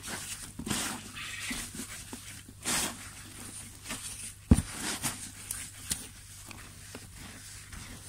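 Coco peat and potting soil rustling and crunching as a gloved hand stirs them in a plastic tub, with irregular scrapes against the tub's side and one sharp thump about halfway through.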